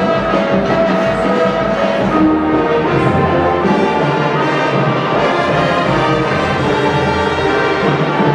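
High school marching band playing its show, the brass section sounding held chords that change every second or so.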